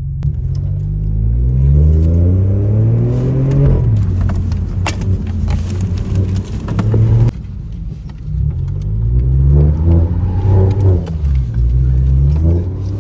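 BMW F20's B38 three-cylinder turbo engine revving hard under acceleration, its pitch climbing again and again and falling back between climbs, with a sharp click about five seconds in.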